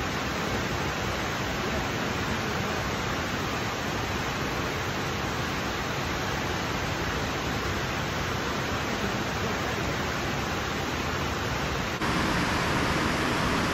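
Steady rush of water pouring over a dam, an even, constant noise. About twelve seconds in it suddenly gets louder and brighter.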